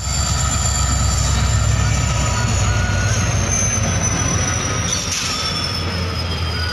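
WDP4D diesel locomotive (16-cylinder two-stroke EMD engine) passing at close range as it pulls a train away, with a deep steady engine rumble and wheel-on-rail noise. Over it runs a thin high whine that slides slowly down in pitch, and a brief hiss about five seconds in.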